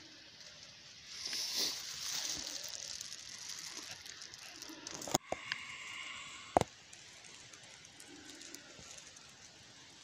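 Rustling of leaves and bramble stems being pushed through by hand while picking blackberries, loudest in the first half, followed by two sharp clicks about a second and a half apart.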